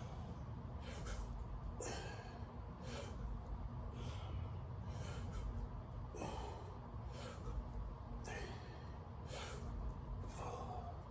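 A person breathing hard from exertion during sit-ups, one short, hissing breath about every second, in time with the repetitions.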